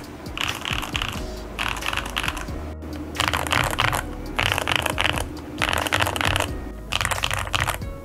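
Fast typing on a Fantech Maxfit81 mechanical keyboard, a dense run of key clacks in six bursts of about a second each with short pauses between them, over background music.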